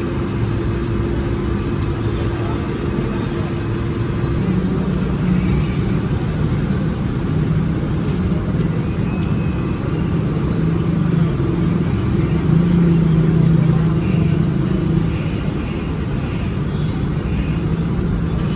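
Steady hum of engines and street traffic. A steady engine note gives way to a louder, lower one about four seconds in.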